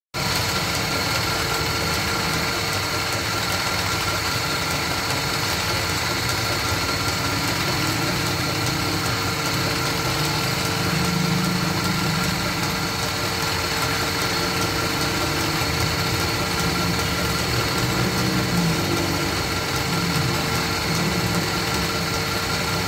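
Belt-driven wood lathe running steadily, its motor and drive giving a constant hum with a few steady whining tones while a wooden bed leg spins on it for polishing.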